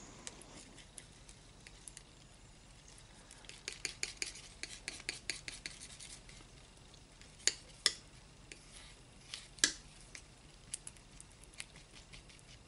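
Metal palette knife mixing paint on a palette: faint scraping with a run of quick clicks and taps, then three sharper clicks in the second half as the blade is pressed and lifted.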